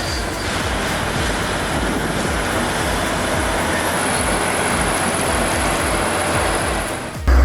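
Heavy tracked earthmoving machine working: a steady engine rumble with clattering track noise and a rhythmic low pulse. It cuts off abruptly about seven seconds in.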